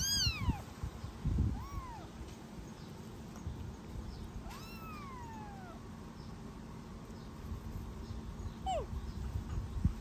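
A kitten mewing four times: a high falling cry at the start, a short rising-and-falling one about two seconds in, a longer drawn-out one around the middle, and a brief falling one near the end.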